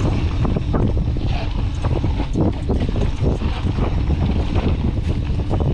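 Wind buffeting the microphone during a fast mountain-bike descent on a dirt trail, with frequent short clicks and rattles from the Canyon Torque full-suspension bike over rough ground.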